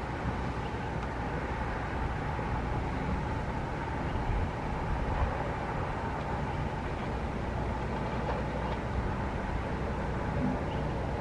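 Wind rumbling on the microphone over steady street traffic noise, with a few stronger gusts about four to five seconds in.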